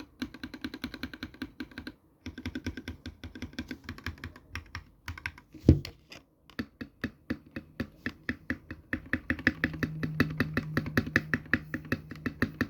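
Fast typing on a 65% mechanical keyboard with linear switches, a rapid run of clacking keystrokes with brief pauses and one heavier thump about six seconds in. A steady low hum sits under the typing in the second half.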